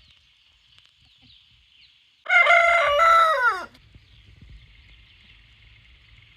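A rooster crows once, a single loud cock-a-doodle-doo of about a second and a half that holds its pitch and then falls away at the end.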